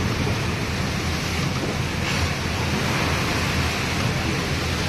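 Steady rushing wind and road noise heard from inside a moving vehicle with its window open, over a low rumble.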